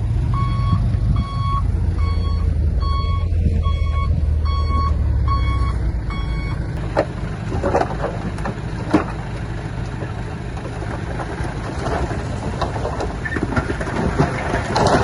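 A heavy earthmoving machine's reversing alarm beeping about twice a second over its diesel engine running, the beeping stopping about six and a half seconds in. The engine keeps running after that, with scattered knocks and clanks.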